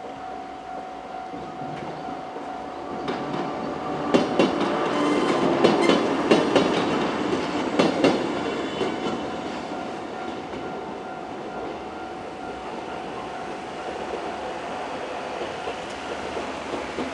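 A two-car 103 series electric train passing a level crossing. Its wheels clack sharply over the rail joints, loudest about four to eight seconds in, then the noise fades. A steady crossing-alarm tone sounds under it.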